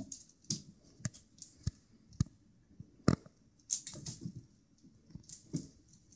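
Irregular taps and soft thumps of a kitten pouncing on a feather wand toy on a hardwood floor, with one louder knock about three seconds in.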